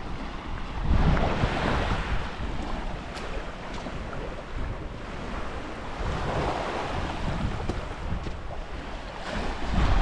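Black Sea surf washing onto the beach, rising and falling, with wind buffeting the microphone in heavy gusts about a second in and again near the end.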